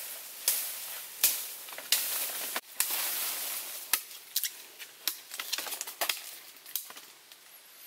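Knife blade cutting into a wooden stick, a run of sharp irregular cuts that come closer together in the second half, over a high hiss in the first few seconds.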